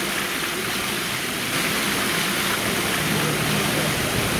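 Water of the Armada Sundial Fountain splashing steadily as it spills over the rim of the tiered basin into the pool below.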